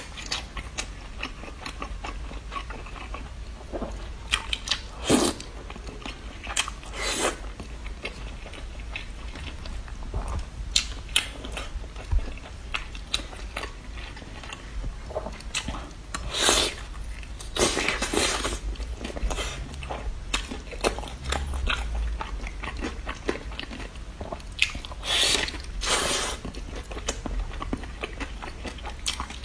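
A person eating close to the microphone: biting into and chewing a sauce-glazed chicken drumstick, with irregular louder bites now and then over a faint steady low hum.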